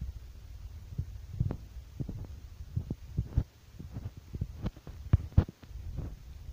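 Low rumble of wind on a phone microphone with a string of irregular soft thumps from footsteps and handling of the phone while walking over dry ground.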